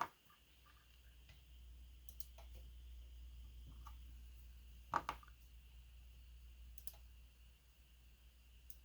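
Faint scattered clicks and a sharper tick about five seconds in, over a low steady hum, as a small lock pin is handled up close.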